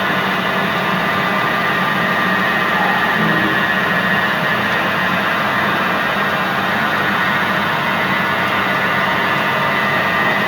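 CNC sliding-headstock automatic lathe running, a loud steady machine noise with a whine of several fine tones over a constant hiss.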